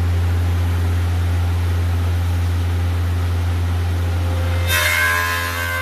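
Four-sided wood planer running with a steady low hum; nearly five seconds in, a sudden burst of noise and a higher steady whine join in.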